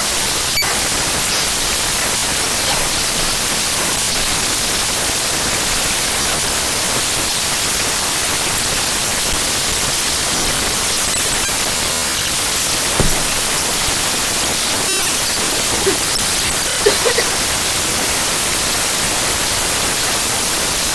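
A program file's raw data played as sound by the Binary Waterfall player: a loud, steady static hiss like white noise, with a few brief faint blips about two-thirds of the way through.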